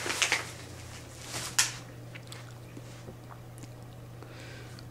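A dog chewing or nibbling in two short noisy bouts within the first two seconds, then a few faint clicks of its mouth, over a steady low hum.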